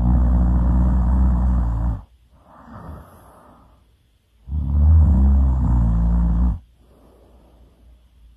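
A person snoring loudly in slow, deep breaths: two long rasping snores about two seconds each, with a softer breath between them.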